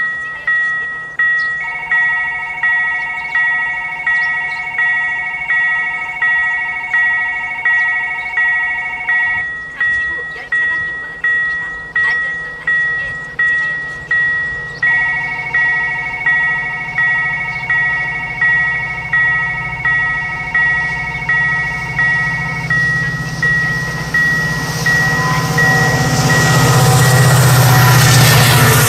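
Railroad level-crossing warning bell dinging steadily, about three strokes every two seconds, with two long, level electronic tones sounding over it. From about 24 s a train's rumble builds and is loudest near the end as the train reaches the crossing.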